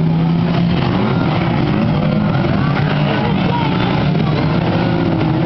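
Several banger-racing cars' engines running over a dirt track, their pitch rising and falling as they rev.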